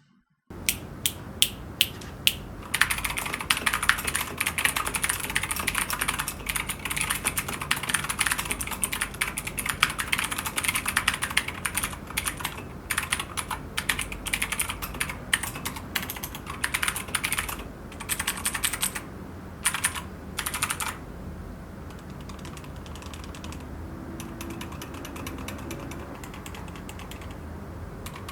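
Typing on a Keychron K2 V2 mechanical keyboard with clicky Gateron Blue switches: a few single keystrokes, then fast continuous typing that stops about three quarters of the way through, leaving only a faint steady background noise.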